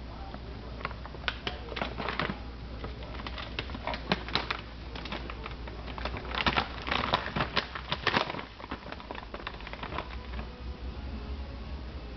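Plastic treat bag crinkling and clicking as it is handled, in irregular spells that are busiest about six to eight seconds in.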